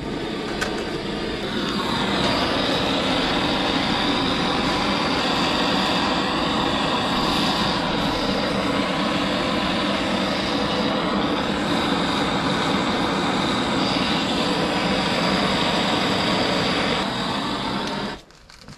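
Gas soldering torch burning with a steady flame while heating a copper pipe joint for soft soldering. It grows a little louder about a second and a half in and is shut off abruptly near the end.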